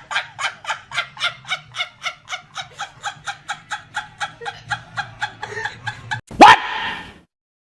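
A rapid run of short, pitched, voice-like calls, about five a second, lasting some six seconds, followed about six and a half seconds in by one loud, sudden sound whose pitch falls.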